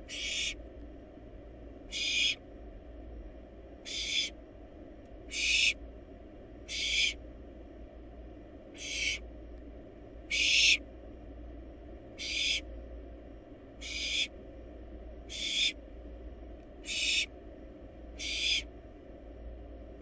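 Barn owl nestling's hissing begging call, the 'snore': a harsh breathy hiss about half a second long, repeated steadily roughly every second and a half, over a faint steady hum.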